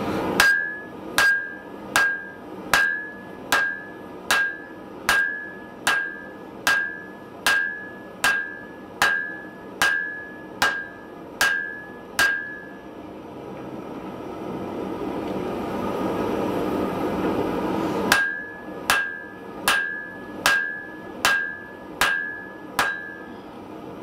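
Blacksmith's hand hammer forging a glowing block of wrought iron on an anvil: sharp blows a little faster than one a second, each with a short metallic ring. About sixteen come in one run, then a pause of several seconds, then about eight more. A steady rushing noise runs underneath and swells during the pause.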